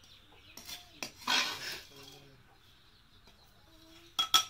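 Steel ladle scraping and knocking against a small steel tumbler as fried dry fish is tipped into it, with a rustling scrape early on and two sharp metal clinks near the end.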